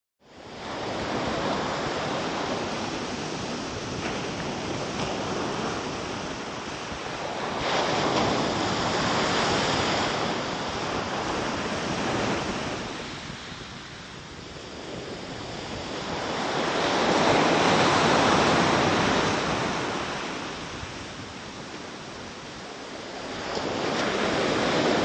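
Ocean surf: waves breaking and washing in, swelling and ebbing slowly every several seconds.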